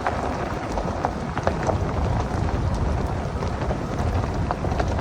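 Truck driving, heard from inside the cab: a steady low rumble of engine and tyres with small knocks and rattles scattered through it.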